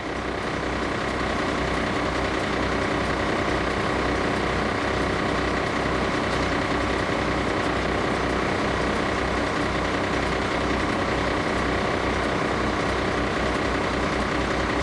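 Fire apparatus diesel engine running steadily with a low, even throb, swelling over the first second or so and then holding level.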